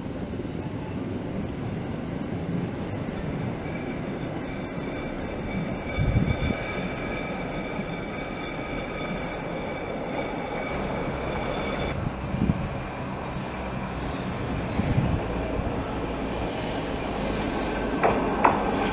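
Electric rack-railway railcar of the Budapest Cog-wheel Railway running on the line: a steady rumble with high, drawn-out squealing tones from the wheels and gear, and a few low thumps. Near the end come clicks and a new squealing tone as a railcar comes in.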